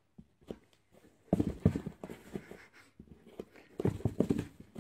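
A cardboard box knocked and scraped by a cat playing inside it, pawing through the handle hole at a foot: quick knocks bunched about a second in and again near the end.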